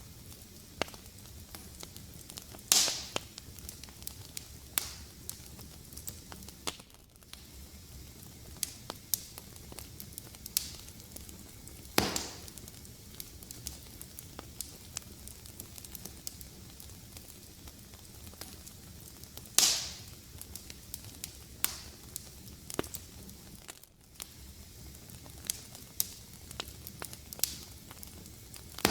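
Fire in a fireplace crackling: a steady low hiss with frequent sharp snaps, and three louder pops at about three, twelve and twenty seconds in.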